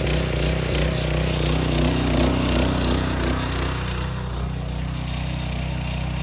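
Small gasoline engine of a hot water pressure washer running steadily, with the hiss of high-pressure water spray over it that eases off about four seconds in.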